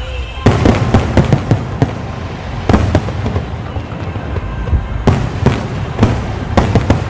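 Fireworks show: clusters of sharp bangs and crackling bursts, several in quick succession about half a second in, around three seconds, around five seconds and near the end, with music playing underneath.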